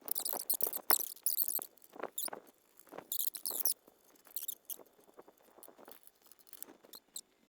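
Hands handling computer parts: irregular crinkling, rustling and small clicks, heaviest in the first four seconds, then sparse faint ticks.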